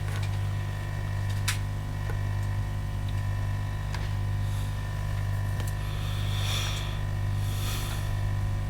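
Steady low electrical hum on the workbench, with a couple of faint soft hisses near the end.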